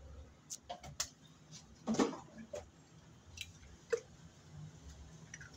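Eggs being cracked with a knife over a blender jar: a string of short, sharp taps and clicks of the blade on the shells and the shells breaking, the loudest about two seconds in.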